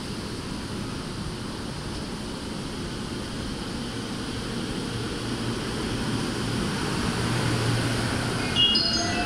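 JR East E231 series 500 electric commuter train pulling out of the platform: its running noise and a low motor hum grow louder as it gathers speed. Near the end comes a quick run of short, rising high tones.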